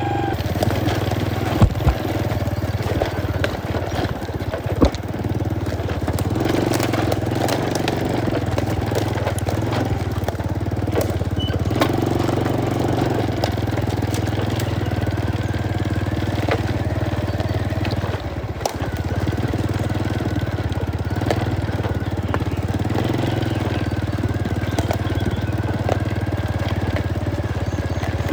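Motorcycle engine running steadily while riding, with a few sharp knocks about two, five and eighteen seconds in.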